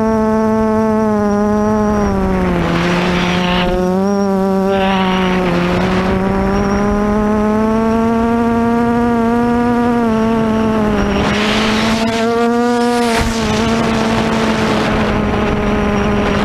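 Lumenier QAV400 quadcopter's SunnySky X2212 brushless motors and 8x4.5 props running with a steady hum, heard from on board. The pitch dips and rises with throttle. Bursts of wind rush come about three and five seconds in, and a longer one around eleven to thirteen seconds.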